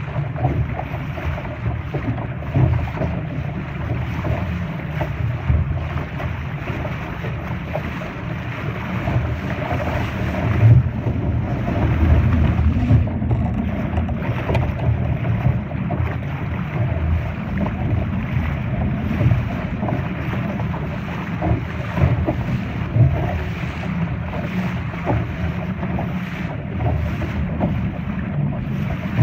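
Wind buffeting the microphone over the rush and splash of water, aboard a Laser sailing dinghy under way, with gusts rising and falling.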